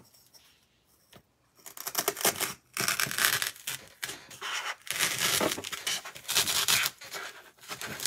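A knife sawing through a styrofoam ball: a run of scraping, crunching strokes that starts about a second and a half in.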